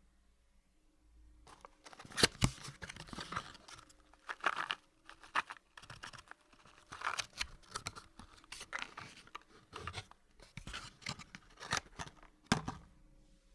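Cardboard box being handled: cardboard rustling, scraping and crinkling in irregular bursts, with a few sharp knocks, starting about a second and a half in.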